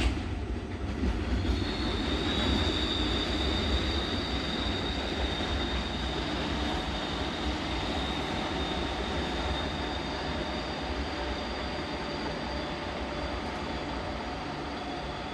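Freight train of covered hopper wagons rolling away over curving track, with a steady low rumble and a high, steady squeal from the wheels that starts about a second and a half in. The sound slowly fades as the train draws off.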